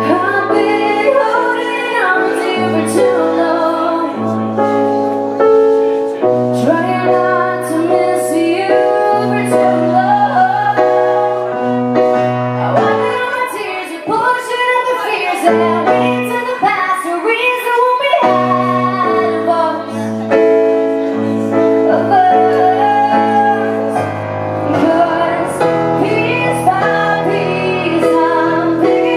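A woman singing a song into a microphone, accompanied by a Casio electric keyboard playing held chords, heard live and amplified.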